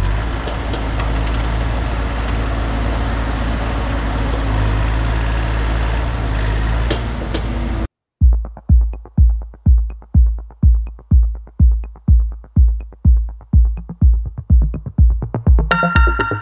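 Bobcat E42 mini excavator's diesel engine running steadily as it works. About eight seconds in it cuts off abruptly, giving way to electronic music with a steady bass-drum beat of about two hits a second.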